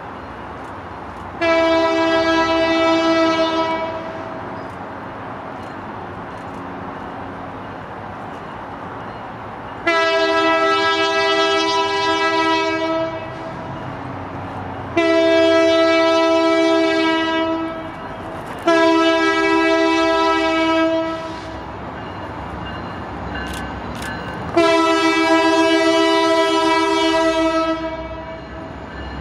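BNSF diesel locomotive's multi-chime air horn sounding five blasts of two to three seconds each, a steady chord of several notes. A low rumble continues between the blasts.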